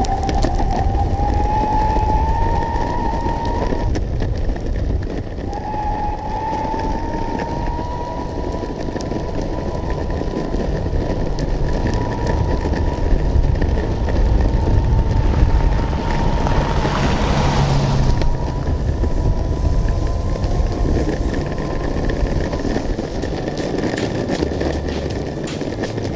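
Electric skateboard riding on rough, rock-studded asphalt: a steady rumble of the wheels on the road, with the electric drive motor's whine climbing as the board speeds up. The whine drops out about four seconds in, comes back, rises again and then holds at an even pitch.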